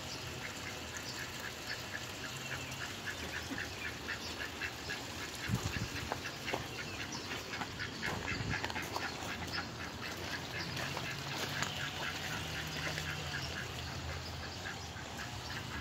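Rouen ducks giving a run of soft, short quacks, several a second.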